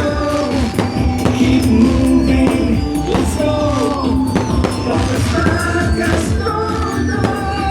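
A pop song playing, a sung melody over a steady beat and bass: a Chinese New Year song.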